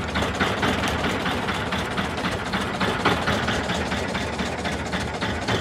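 Boat engine running steadily at idle.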